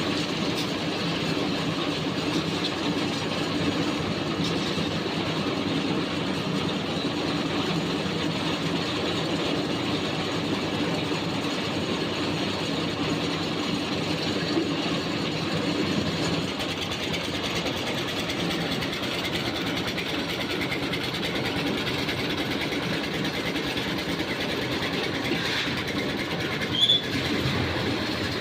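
Concrete mixer machine running steadily with a continuous mechanical noise, its drum turning. A brief sharp high-pitched sound cuts in once near the end.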